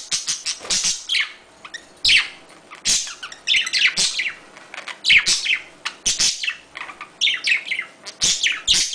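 Budgerigars chirping and chattering in quick bursts of high, falling chirps about once a second during mating.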